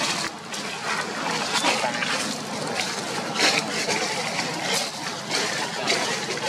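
Dry fallen leaves rustling and crackling as a newborn macaque tumbles and thrashes on them: a steady rustle with several sharper crackles.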